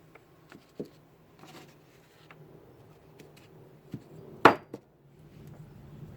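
Metal transmission parts handled on a workbench: scattered light clicks and taps, with one sharp knock about four and a half seconds in as a part is set down.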